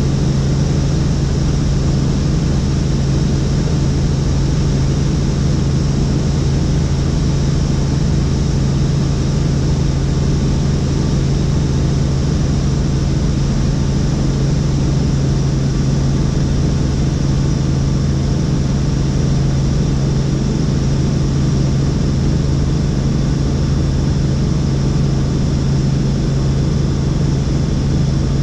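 Helicopter running steadily in flight, its engine and rotors making a constant low hum with a steady hiss above it.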